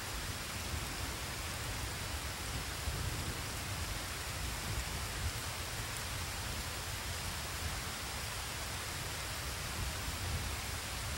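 Steady rain sound: an even hiss with a low, flickering rumble underneath.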